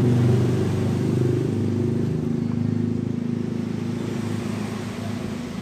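A motor vehicle's engine running, loud at first and then fading steadily away.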